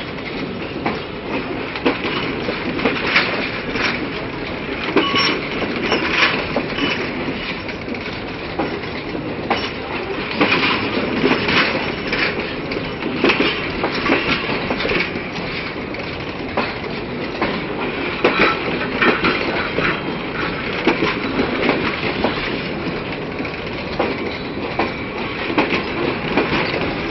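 Passenger coaches rolling past as the train pulls out: a steady rumble of steel wheels on the track with frequent clicks and clanks as the bogies cross rail joints, and a few brief faint wheel squeals.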